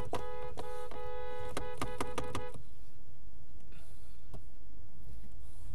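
Two-tone car horn held for about three seconds, cutting off about two and a half seconds in, with several sharp clicks over it. Then only low traffic noise.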